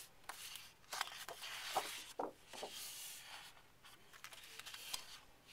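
Sheets of patterned scrapbook paper being leafed through and slid over one another: quiet rustling and sliding with a few light ticks.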